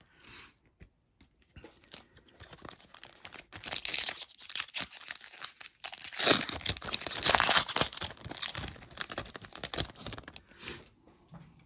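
Foil wrapper of a Topps Chrome trading card pack crinkling in the hands and being torn open, loudest about six seconds in, with the cards then slid out of the torn wrapper.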